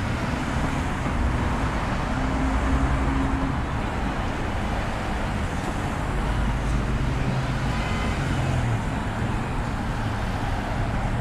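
Road traffic: motor vehicle engines running and passing, a steady noisy hum with low engine tones that rise and fade.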